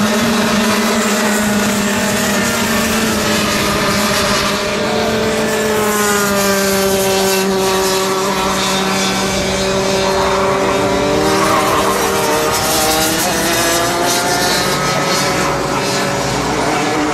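Several two-stroke racing kart engines running at high revs, their overlapping pitches rising and falling as the karts accelerate and pass.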